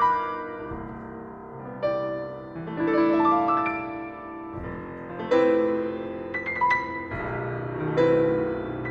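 Grand piano played solo: sustained notes and chords, with fresh loud chords struck about two, five and eight seconds in.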